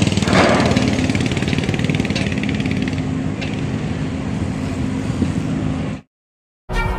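An engine running steadily with a low hum and no regular hammer blows. It cuts off abruptly about six seconds in, and music starts just before the end.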